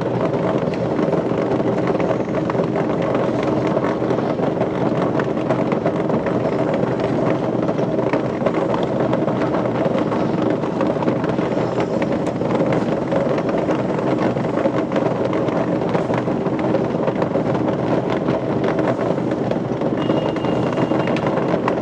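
Steady machinery noise: a loud, even drone with a constant hum and no breaks.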